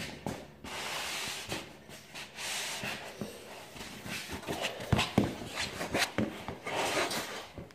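Rubbing and scraping that comes and goes, with a few sharp knocks about five to six seconds in.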